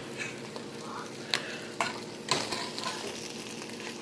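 An omelet with bacon pieces and peppers sizzling in a frying pan, with a few sharp clicks of a utensil in the pan.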